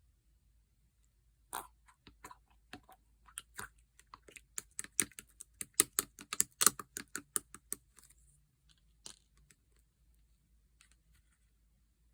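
Clear slime being played with by hand, giving a run of sharp clicks and pops that starts about a second and a half in, comes thick and fast in the middle, then thins to a few scattered pops near the end.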